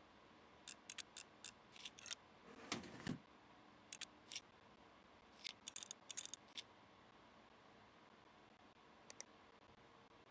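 Faint scattered clicks and handling noises from hardware being worked on, with a brief louder scrape or rustle about three seconds in and a couple of last clicks near the end.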